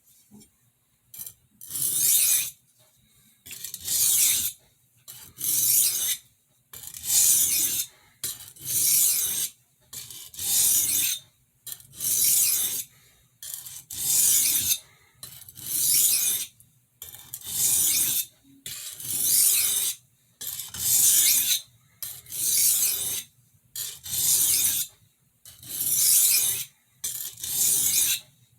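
Steel blade of a 6-inch kitchen utility knife stroked back and forth across a sharpening stone: a steady rhythm of rasping strokes, each about a second long, with short gaps between, about twenty in all.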